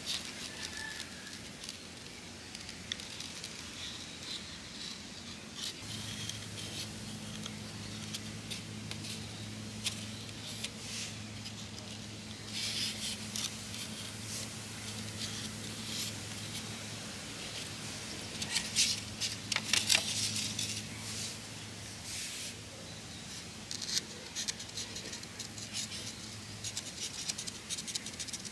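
Marker pen scratching in short strokes as it traces around a plastic bottle cap on a disposable lunch-box lid, with the cap and box being shifted and handled. A low steady hum comes in about six seconds in and stops near the end.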